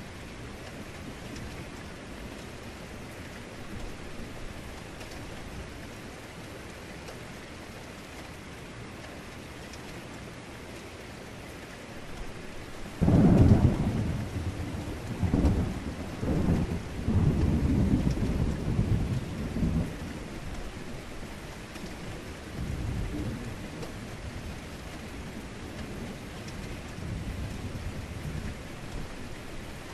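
Heavy rain falling steadily. Near the middle a thunderclap breaks suddenly and rolls on as a deep rumble in several swells for about seven seconds, followed shortly by a fainter rumble.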